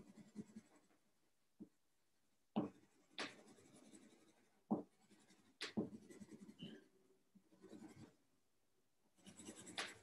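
Faint scratching of a colored pencil shading on paper in quick, irregular strokes, with a few sharper clicks about two to six seconds in.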